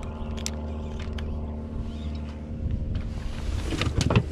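Steady electric hum of a bow-mounted trolling motor on a fishing boat. From about three seconds in, louder rustling with sharp clicks and knocks comes in as the caught crappie is handled on the deck.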